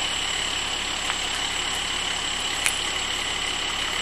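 Vehicle engine idling steadily, with a faint steady high-pitched tone over it and one small click near the middle.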